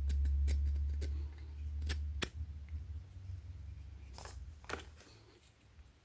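Sharp metal clicks and scrapes of a Zippo lighter being handled as its chrome insert is pulled out of the case. The clicks come thick in the first two seconds, over a low rumble of handling, then two more about four and five seconds in.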